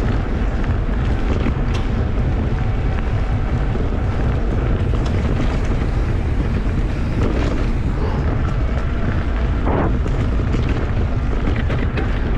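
Wind rushing over the microphone and the rumble of a mountain bike rolling fast over a dirt trail, with a few sharp rattles from the bike over bumps.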